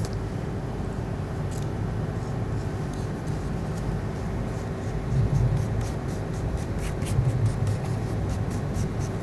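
Steady low hum of background noise, with light scratches and small taps of a brush spreading glue on a paper card.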